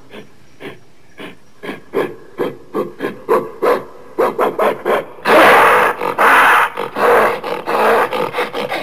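Gorilla sound effect: a run of short rhythmic pulses that gradually speed up, then a loud roar about five seconds in, followed by more short pulses.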